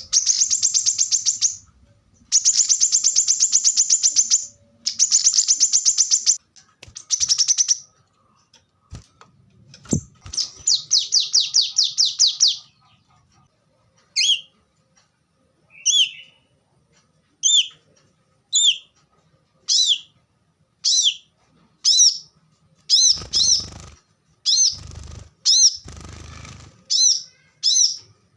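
Brown-throated sunbird (kolibri kelapa) singing: high, very rapid trills in bursts of one to two seconds, then sharp single 'wiceh' call notes about once a second, some doubled near the end. A few low muffled bumps sound under the calls near the end.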